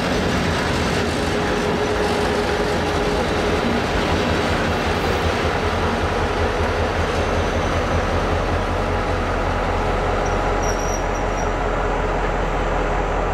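Class 664 diesel-electric locomotive engine running with a steady low throb as the locomotive moves slowly along the track. A brief high squeal comes about ten seconds in.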